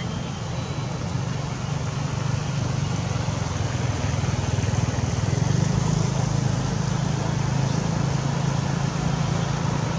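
An engine running steadily with a low hum, growing louder a couple of seconds in and staying up.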